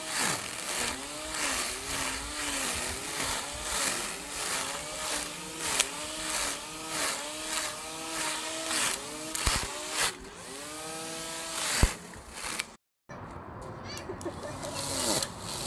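Handheld string trimmer whirring as its head sweeps back and forth through grass. The motor's pitch dips and recovers over and over as the line meets the grass, with a brief drop-out near the end.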